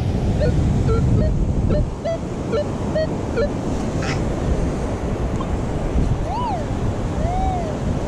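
Surf and wind on the microphone throughout, with a quick run of short beeps from a Minelab Equinox metal detector in the first few seconds as it sweeps over a target in the sand. Near the end come two tones that slide up and back down.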